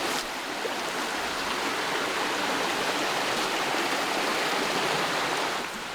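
Steady rushing of a creek's small waterfall, water cascading over rock.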